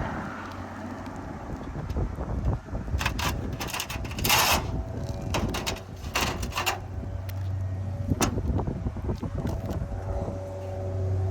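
Wind buffeting the microphone, with several short scraping, rustling noises, and a steady low hum that comes in about halfway through.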